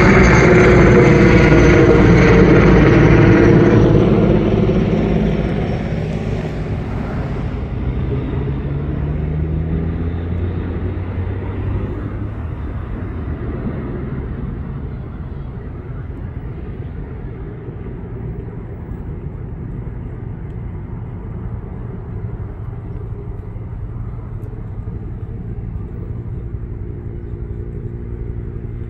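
Large firefighting helicopter passing overhead, loud at first and fading away over about five seconds. A steady, quieter engine rumble remains afterwards.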